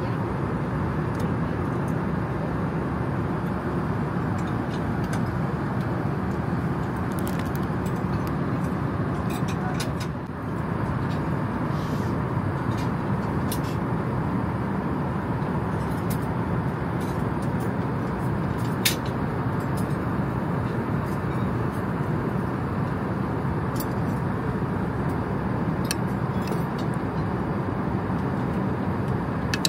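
Steady cabin noise of an Airbus A380 in flight, a low even rush, with scattered light clinks of cutlery on dishes, the sharpest about two-thirds of the way through.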